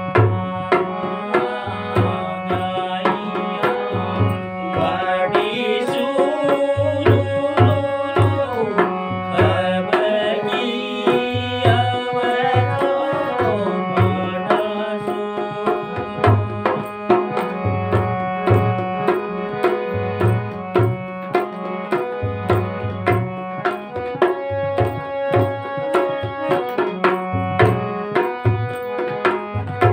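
Harmonium playing a Kumaoni folk song, its reeds holding steady chords under a hand drum keeping a regular beat. A man's singing voice comes in over it for a stretch in the first half.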